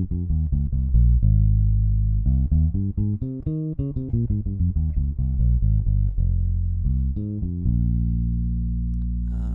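Alien Audio Constellation four-string electric bass played direct, with no effects, and its bass EQ knob boosted all the way: a run of quick plucked notes broken by a longer held low note, ending on a sustained low note.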